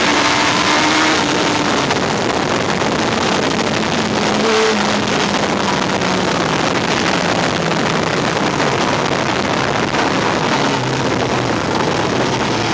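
Yamaha R1 sport bike at track speed: heavy wind rush on the bike-mounted microphone, with the inline-four engine note underneath, dropping gradually in pitch through the middle as the bike slows.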